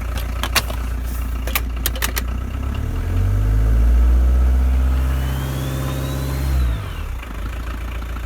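Rover SD1 2400 SD Turbo's VM 2.4-litre four-cylinder turbodiesel idling, then revved once on the freshly freed accelerator pedal: the engine climbs, holds for a few seconds with a thin whistle from the turbo rising and falling above it, and drops sharply back to idle. A few sharp clicks come in the first two seconds.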